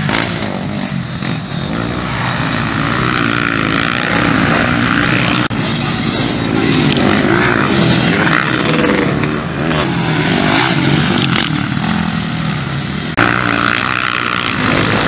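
Several motocross bikes racing, their engines revving up and down in pitch as the riders accelerate and shift.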